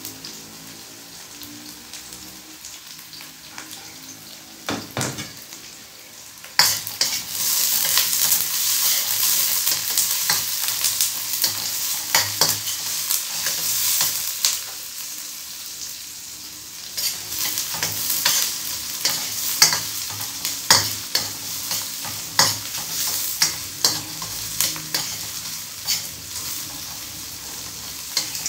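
Small onions and green chilies frying in hot oil in a pan, stirred with a spatula that scrapes and clicks against the pan. The sizzle jumps suddenly louder about six seconds in and stays loud, with repeated sharp scrapes.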